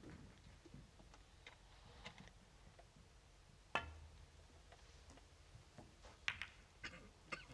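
Near silence broken by sharp clicks of snooker balls striking one another: one clear click about halfway through, then three quicker clicks near the end.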